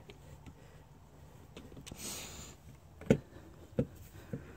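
Volvo V70 fuel filler door on its new spring-loaded hinge being swung shut to check its fit: a brief swish about two seconds in, then a sharp click as it closes, followed by two lighter clicks.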